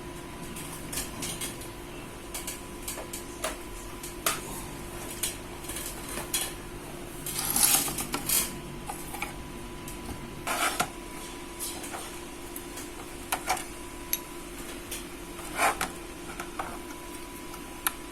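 Scattered clicks, taps and light clatter of laptop parts and small tools being handled on a work surface while a laptop is taken apart. A few louder rattles come about halfway through and again near the end.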